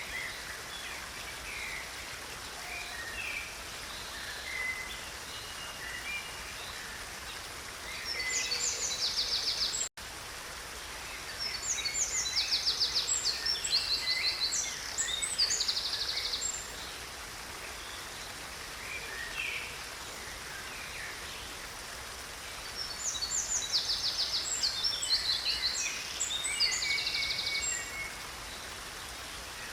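Steady rush of a stream's running water with wild birds singing over it: scattered chirps, and three longer bouts of fast, high trills about 8, 11 and 23 seconds in. The sound cuts out for an instant about ten seconds in.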